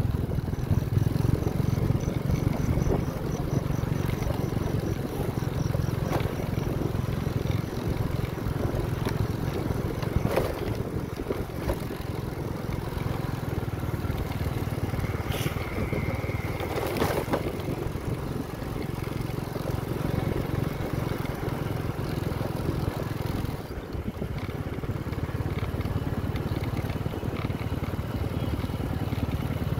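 Motor vehicle driving along a dusty dirt road: a steady low engine drone with road rumble and wind rush. A few short knocks come through, about ten, fifteen and seventeen seconds in.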